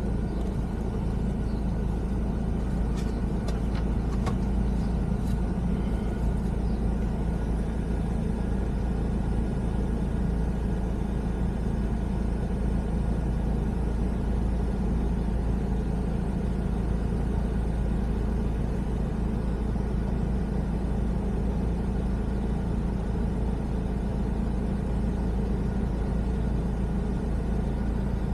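Steady low rumble of a car heard from inside the cabin: engine and road noise while driving. A few light clicks sound in the first several seconds.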